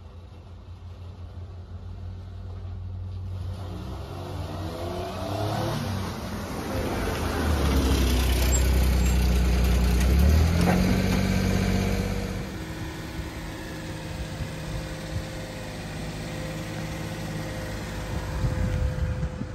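1997 Mitsubishi Minicab kei truck's 660 cc three-cylinder engine running. The revs rise over a few seconds, hold high for about three seconds, then drop back to a steady idle about twelve seconds in.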